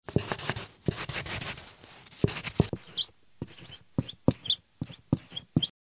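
Pen scratching on paper in quick drawing and writing strokes: a dense flurry of scratches at first, then a string of separate short, sharp strokes that stop suddenly near the end.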